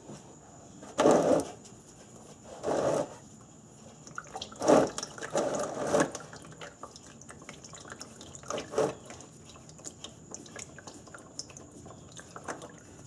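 Used engine oil running and dripping out of an oil filter as it is unscrewed by hand, landing in a drain pan in irregular splashes that thin to scattered drips near the end.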